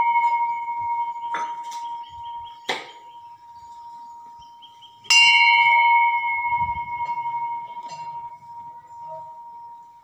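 Large hanging brass temple bell rung by hand, with a clear, long, slowly fading ring. There are two light knocks of the clapper in the first three seconds, then a second loud strike about five seconds in that rings on and dies away.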